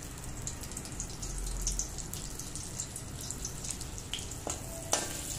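A lump of butter melting in hot oil in an iron kadai, with a soft, steady sizzle and scattered faint crackles.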